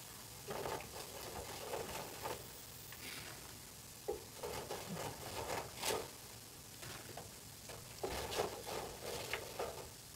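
Metal tongs scraping and clicking against the wire basket of a Proctor Silex deep fryer as crinkle-cut fries are lifted out and dropped onto a paper-towel-lined tray. The scrapes and clicks come in short clusters, with a sharper click about six seconds in.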